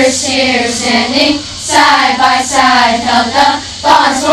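A large group of young girls singing a camp song together, in sung phrases broken by short breaths about a second and a half in and again near the end.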